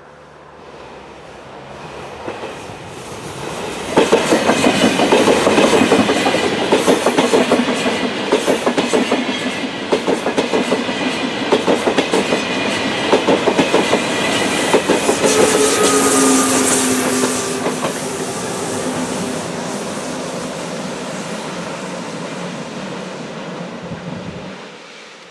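ÖBB Railjet passenger train passing close by at speed. Its rumble builds as it approaches, then turns into a fast, loud clatter of wheels over the rail joints as the coaches go by. A humming whine joins in about two-thirds through, then the noise eases off and cuts off sharply near the end.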